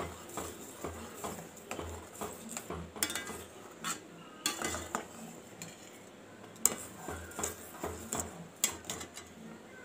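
A steel spoon stirring in a stainless steel pot, scraping and clinking irregularly against the sides and bottom as thick, curdled colostrum milk is stirred, with a sharper knock about two-thirds of the way through.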